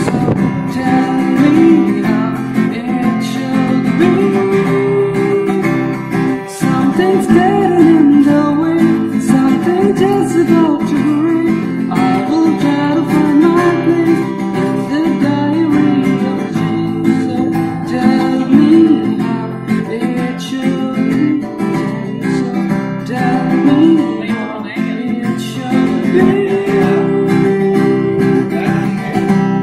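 Acoustic guitar strummed as accompaniment to a man singing, a continuous song with wavering held notes.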